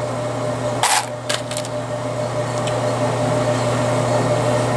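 .223 brass case dropped onto other brass cases: one sharp metallic clink about a second in, followed by a few smaller clinks, over a steady low hum.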